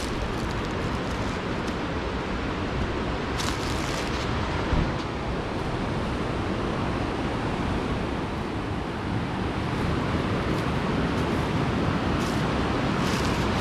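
Steady rush of a creek waterfall.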